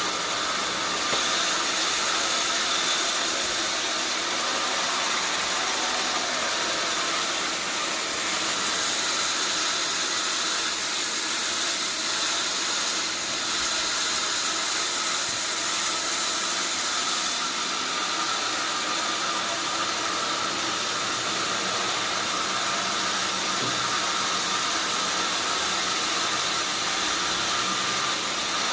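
Sawmill machinery running steadily: a constant mechanical drone, mostly high-pitched hiss, with no change in level.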